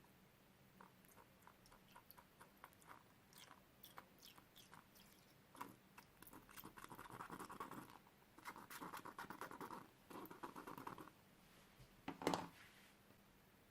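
Slime being squeezed and worked by hand: scattered small clicks, then three bursts of sticky crackling and popping lasting a second or two each, and one louder squish near the end.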